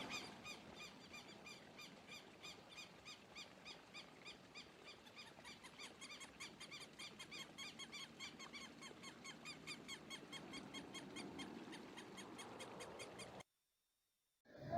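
Faint animal call: a rapid, even series of short high chirps, about four or five a second, that cuts off about 13 seconds in.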